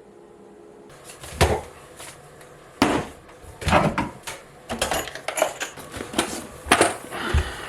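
Irregular knocks and clunks of wood being handled in a workshop, about seven of them over several seconds, starting about a second in.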